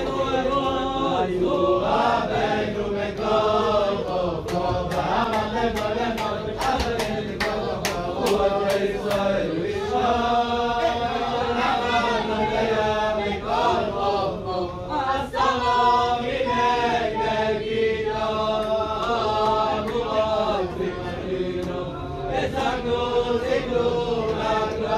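A group of men singing a Hasidic song together, many voices in a steady chant-like melody.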